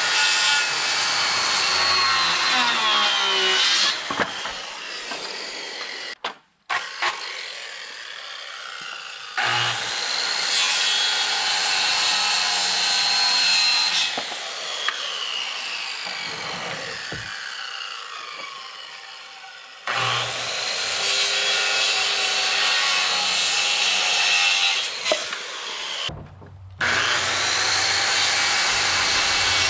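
Electric saw cutting through wooden boards several times, each cut lasting about four seconds, with the blade's pitch winding down between cuts.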